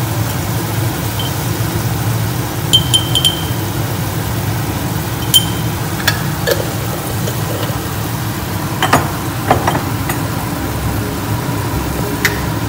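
A spoon clinking and tapping against the pan as tomato sauce is stirred: a quick run of three clinks about three seconds in, another at about five seconds, then softer knocks later on. Under it runs a steady low rumble.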